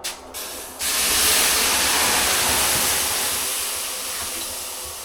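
A loud, steady hiss that starts about a second in and slowly fades away.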